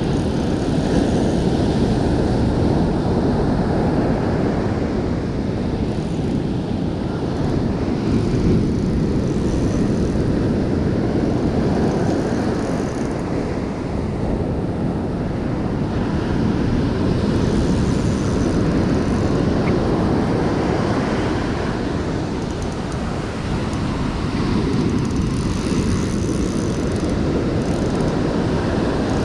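Surf breaking and washing up a sand beach, a steady roar that swells and eases every several seconds, with a heavy low rumble of wind on the microphone.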